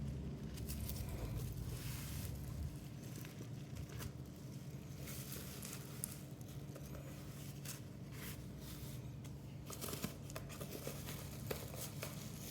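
Packaging being handled: plastic or paper crinkling and tearing in irregular bursts, with scattered small clicks and taps, over a steady low hum.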